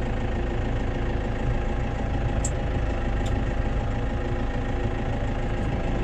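Case IH Farmall 75C tractor engine running steadily at low revs as the tractor reverses slowly. Two short, high clicks sound about two and a half and three and a half seconds in.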